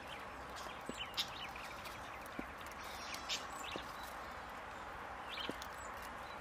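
Goats' hooves and mouths working the dry branches of a discarded Christmas tree: scattered light twig crackles and small knocks over a quiet outdoor background hiss. The crackles come in short clusters about a second in, around three seconds in and again near five and a half seconds.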